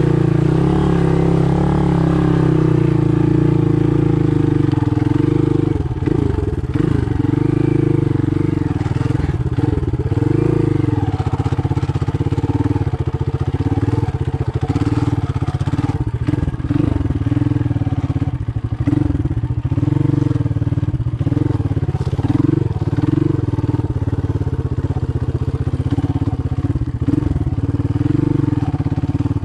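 Motoland Legend 300 motorcycle engine running as the bike rides a muddy, rutted track. From about six seconds in the engine note rises and falls with the throttle, among scattered knocks and clatter.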